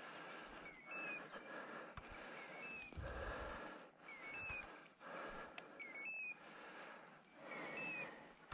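Walking through tall dry grass and scrub: rustling swishes with each step and a few dull footfalls. A short rising chirp, identical each time, repeats about every one and a half to two seconds.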